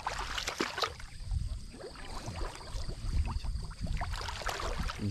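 Water splashing and sloshing in irregular bursts, as from hands, a net or a paddle moving through the water.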